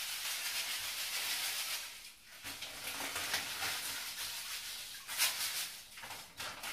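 Epsom salt crystals poured from a plastic bag into a filled bathtub: a steady hissing pour for about two seconds, then a short pause and stop-start spurts as the bag is shaken out.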